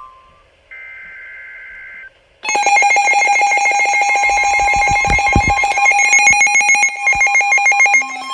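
An Emergency Alert System broadcast. First comes the last burst of the digital SAME header, a short warbling data buzz, which marks the start of a new alert. About two and a half seconds in, the loud, steady two-tone EAS attention signal begins and holds.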